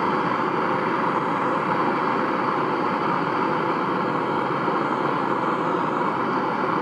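Hand-held torch flame burning steadily, a constant rushing hiss, as it heats a rusted cylinder-head bolt to red heat to break it free.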